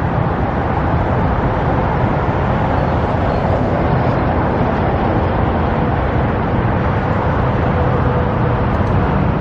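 Steady road traffic noise, a continuous low rush of passing vehicles with a faint engine tone in the middle.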